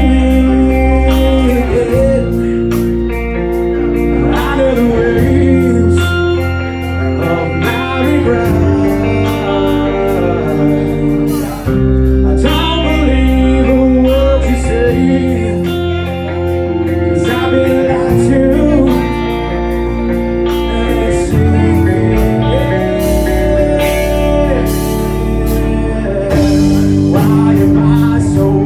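Live band playing a slow song in a minor key: electric guitars and bass with a voice singing over them, loud and steady throughout.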